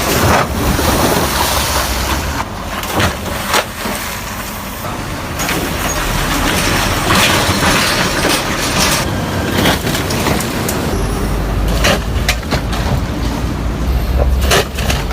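Car driving on a rough road: steady road and engine rumble, broken by several sharp knocks as the wheels hit bumps and potholes.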